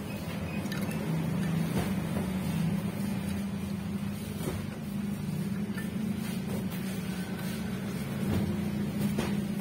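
A steady low drone, with a few faint clicks as wire-harness connectors are handled and pushed onto a photocopier's power-supply board.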